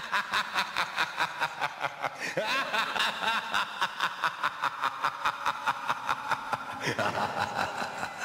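Cackling laughter sound effect, a rapid, even pulse of about six beats a second with gliding pitch, shifting in tone about seven seconds in.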